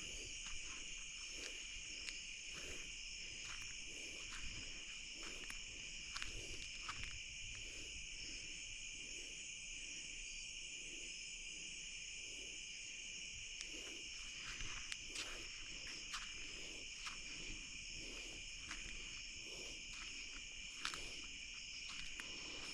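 Night insect chorus, crickets and other insects, a steady high trill that does not let up, with faint soft clicks here and there.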